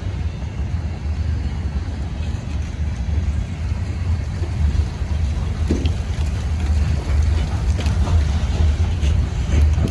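Freight train of covered hopper cars rolling past: a steady low rumble of steel wheels on rail, with a few sharper clicks and squeals of the wheels, more of them near the end.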